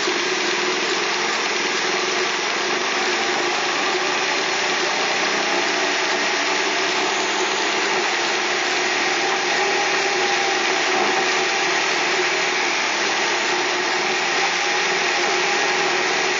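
Steady noise inside a car driving on a rain-wet highway: the engine running under an even hiss of tyres on the wet road and rain on the windshield.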